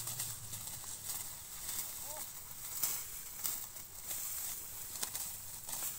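Irregular rustling and crunching of dry rice straw and stubble over a steady high hiss, with one brief call about two seconds in.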